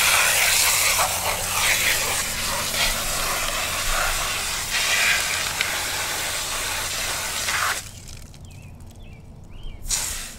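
Garden hose spray nozzle shooting a jet of water into a plastic colander of mud, a steady hiss that cuts off sharply about eight seconds in. It sprays again in a short burst near the end.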